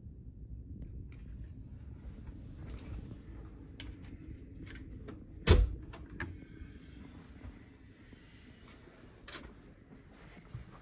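Sleeper-train cabin door's lever handle and latch: one sharp, loud clunk about halfway through, then a few lighter clicks, over a low rumble that fades after the clunk.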